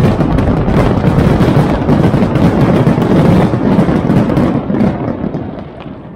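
Fireworks finale: many rapid, overlapping bangs merging into a continuous heavy rumble, dying away over the last second and a half.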